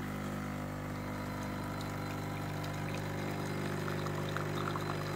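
Automatic coffee machine's pump running with a steady hum as coffee pours from its twin spout into a mug.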